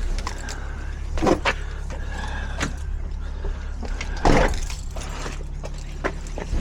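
Van engine idling with a steady low hum, with several clicks and knocks from the cab; the loudest knock comes about four seconds in.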